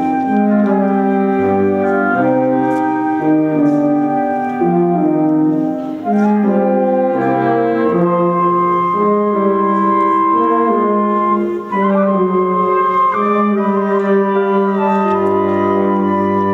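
Wind band music: clarinets and brass playing slow, held chords, in the manner of a Holy Week processional march.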